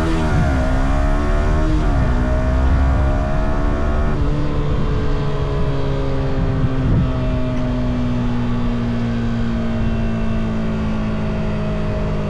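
Stock Yamaha R125's 125 cc single-cylinder four-stroke engine pulling hard. Its note rises, drops sharply twice within the first two seconds as the rider shifts up, then falls slowly as the bike eases off, with wind rushing past.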